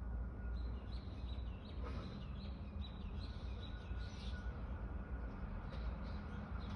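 A small bird chirping in a quick series of short, high calls, about two a second, for roughly four seconds. A steady low rumble runs underneath.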